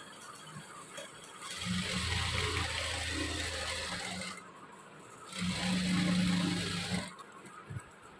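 Sewing machine stitching a seam in two runs: one starting about a second and a half in and lasting nearly three seconds, then a shorter run of about a second and a half after a brief stop.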